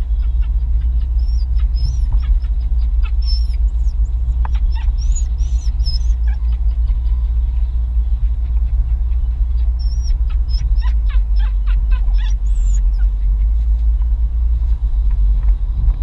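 Car cabin noise while driving: a steady low rumble of engine and tyres on the road. Faint high squeaks and light ticks come now and then, in clusters near the start and again around the middle.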